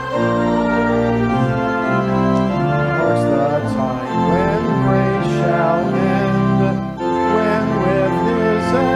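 Organ playing a hymn in held chords, with a voice singing the melody over it from about three seconds in.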